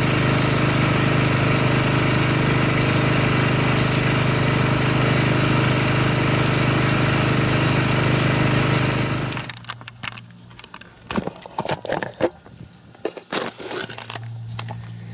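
Pressure washer running steadily while it sprays thick foam through an MTM foam cannon, cutting off abruptly about nine seconds in. After that come scattered light knocks and rustles.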